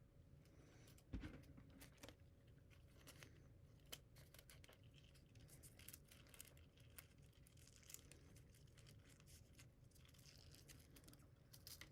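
Faint handling of adhesive tape on a coil of 3D printer filament: light rustling, tearing and scattered small clicks, with one louder knock about a second in.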